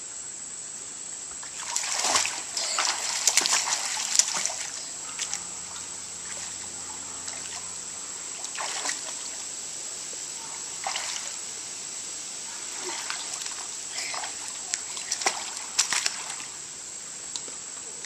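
Pool water splashed by a child swimming: irregular splashes of arms and legs, heaviest a couple of seconds in and again in short bursts later. A steady high insect chirring runs underneath.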